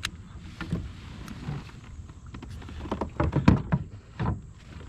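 Scattered knocks and clatters in a fishing kayak, with a quick run of sharper knocks about three seconds in.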